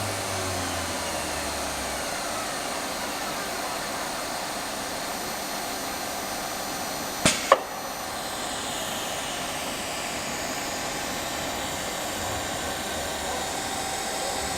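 CNC router running while carving MDF: a steady spindle noise with a faint high whine, and two sharp clicks about halfway through.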